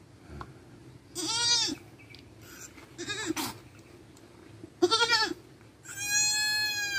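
Nanny goat in labour bleating four times, the last call the longest at about a second and dropping in pitch as it ends.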